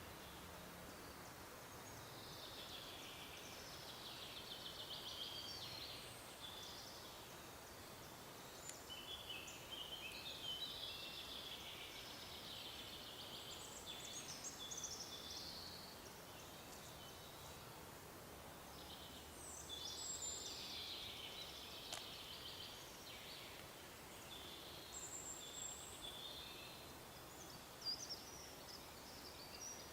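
Forest songbirds singing in several bouts of chirps and trills, faint over a steady background hiss.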